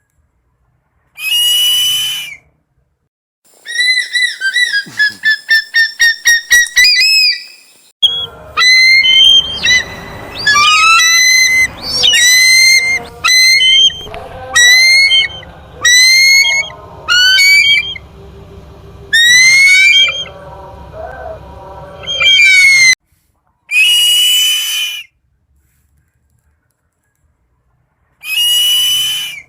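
An eagle screaming: a series of loud, high, piercing screeches with gaps between them. From about four seconds in comes a rapid run of short repeated notes, about four a second. A low background rumble sits under the calls through the middle stretch.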